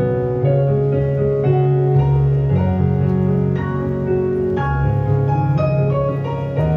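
Slow piano music, held chords changing about once a second.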